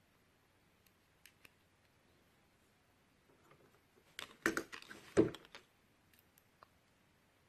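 Small tools from a smartphone repair kit being handled: a few faint clicks about a second in, then a short burst of clicks and knocks about four to five and a half seconds in.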